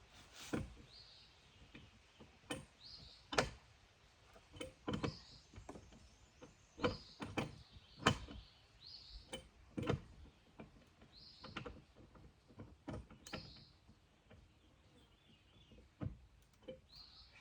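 Irregular knocks, clacks and clicks from hand work on a sawmill's feed works, with a bird chirping over and over in short high notes.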